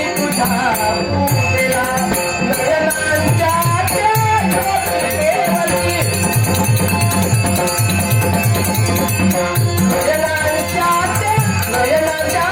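Traditional Konkani Dashavatar devotional music: a wavering melody line over steady, evenly repeated hand-drum beats and constant jingling, rattling percussion.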